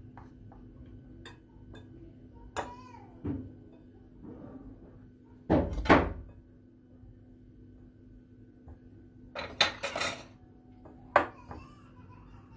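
Scattered clatter and knocks of kitchen pans and utensils being handled, a handful of separate clacks, loudest about six seconds in, with a cluster around ten seconds and one sharp knock near the end.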